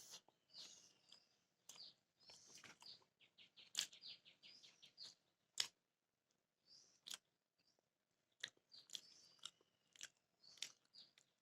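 Someone chewing a mouthful of beef biryani close to the microphone: a quiet, irregular run of wet clicks and lip smacks.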